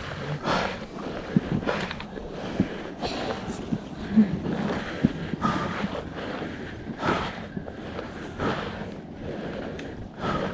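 Heavy, rhythmic breathing of a hiker on a steep climb, a loud breath about every second and a half, with a few light knocks and wind on the microphone.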